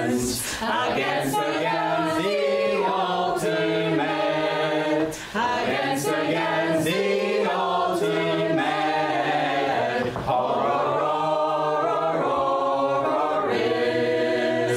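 A group of voices singing a cappella in long held notes, breaking briefly about five and ten seconds in, then stopping abruptly at the end.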